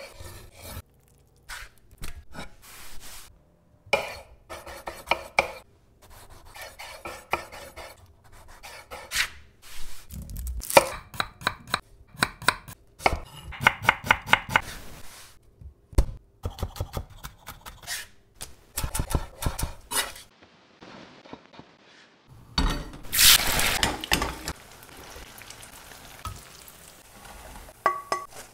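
Kitchen food preparation: a knife cutting tofu and chopping shallots on a wooden cutting board, in runs of quick knocks. About 22 seconds in, a few seconds of loud sizzling frying, and near the end a metal clink of pan against colander.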